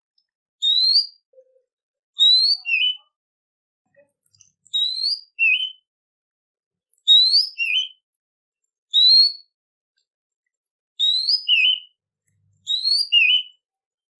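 A songbird repeats a short whistled phrase seven times, about every two seconds: a rising whistle, often followed by a lower, twisting note, with silence between phrases.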